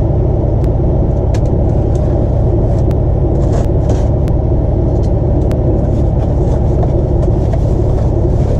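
Diesel truck engine idling steadily, a low rumble, with a few light clicks and rustles on top.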